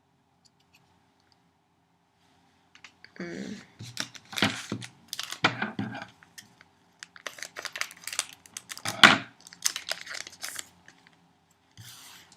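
Wrapping of collectible photo-card packs being torn open and crinkled by hand, close to the microphone. After about three quiet seconds come several seconds of sharp crackling and rustling in bunches, then a brief rustle near the end.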